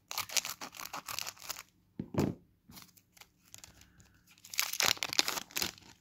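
Magic: The Gathering booster pack's foil wrapper tearing and crinkling as it is opened. There are two spells of crackling, one in the first second and a half and one near the end, with a short scrape about two seconds in.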